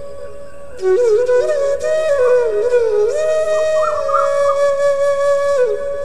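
Background music: a slow, flute-like melody of long held notes with short ornamental turns. A fuller accompaniment joins about a second in and falls away near the end.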